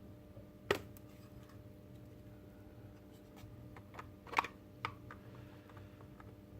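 Hard plastic robot-kit parts clicking and tapping as they are handled and pressed together: a sharp click about a second in, then a cluster of clicks around four to five seconds in, the loudest in the middle of it, over a low steady hum.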